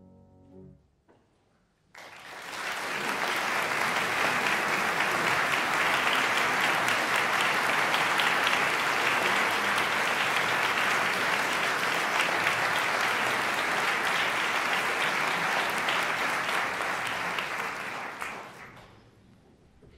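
The last piano chord dies away, then a concert audience bursts into sustained applause about two seconds in. The applause holds steady for some sixteen seconds and fades out near the end.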